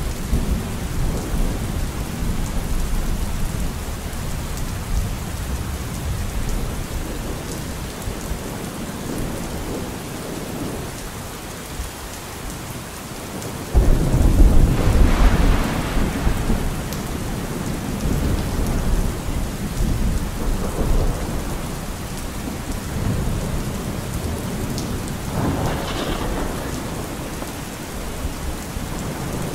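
Steady rain with rolling thunder; a loud thunderclap breaks in about halfway through and rumbles on for a few seconds, and a smaller rumble comes near the end.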